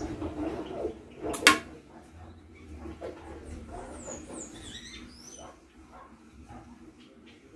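A mini crossbow shot, its bolt striking a wooden plank with one sharp knock about a second and a half in.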